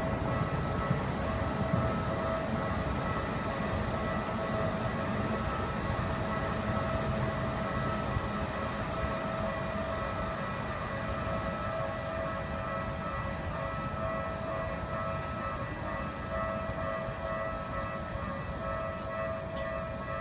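Japanese railway level-crossing alarm ringing steadily over the low rumble of a passing train. The train noise slowly eases over the stretch.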